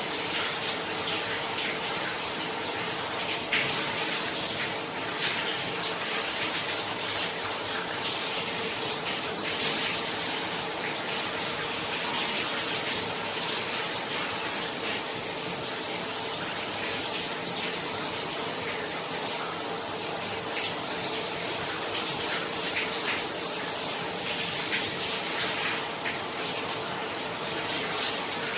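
Shower water running and spraying steadily in a bathroom, an even rushing hiss with a faint steady hum underneath.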